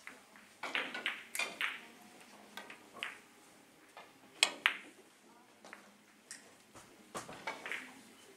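Three-cushion carom billiard balls clicking against each other and the cue tip striking the cue ball: a series of sharp, irregular clicks, the loudest pair about four and a half seconds in.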